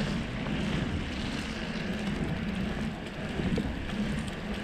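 A bicycle's 3-inch tyres rolling steadily over a snow-covered road, a continuous rushing noise mixed with wind on the microphone, with a few faint ticks scattered through.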